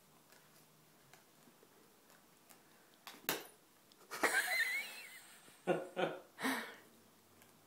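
Bedlington terrier snuffling and snorting into a plush toy as it chews it: quiet at first, then a short snort about three seconds in, a longer wheezy breath about a second later, and three short snorts near the end.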